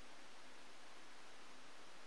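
Faint, steady background hiss with no distinct bird calls or other events.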